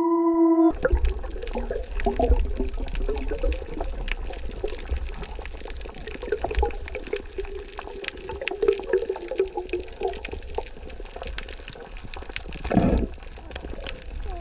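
Underwater recording: steady low rumble and crackling water noise, with a wavering murmur through most of it and a short, louder rush of bubbles near the end.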